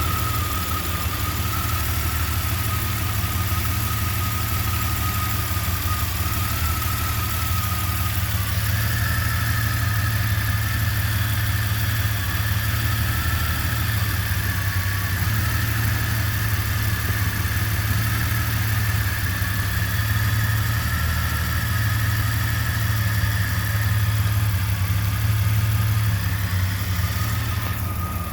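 Jeep Comanche's 4.7-litre stroker straight-six idling roughly. A steady high whine runs over the engine note, joined by a second, higher whine from about nine seconds in until just before the end.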